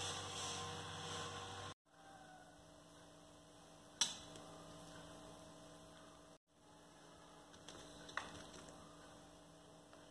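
Low, steady electrical mains hum, cutting out briefly twice, with a sharp click about four seconds in and another about eight seconds in.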